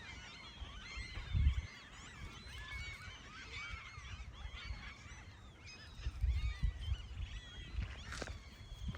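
A large flock of seagulls calling all at once, with many overlapping squawks and cries in a dense chorus. Low rumbles come about one and a half seconds in and again around six to seven seconds.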